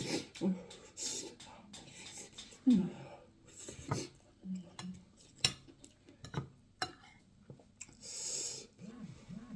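Close-up eating sounds: cutlery clicking against a plate, with chewing and mouth noises, and a breath near the end.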